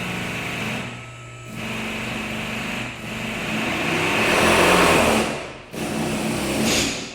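Industrial power drill's motor running in repeated bursts. It drops back briefly about a second in, builds to its loudest around four to five seconds in, cuts out for a moment, then restarts and winds down near the end.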